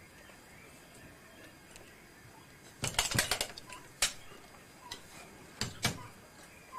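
Wooden parts of a backstrap belt loom knocking as the weaving sword is worked through the warp and beats in the weft. There is a quick run of sharp knocks about three seconds in, then single knocks spaced a second or so apart.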